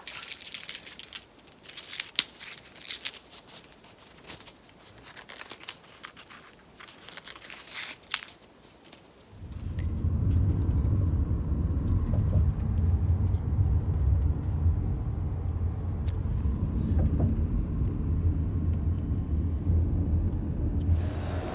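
Scattered clicks and rustling for about nine seconds, then the steady low rumble of road noise inside a moving car, which starts suddenly and stays much louder.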